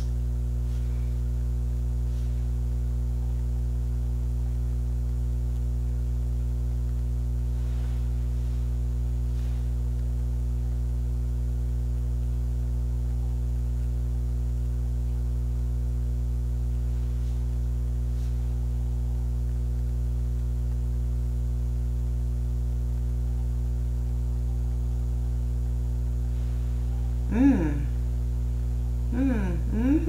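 Steady electrical mains hum, a constant low drone with fixed overtones that does not change. Near the end a woman makes two short hummed vocal sounds.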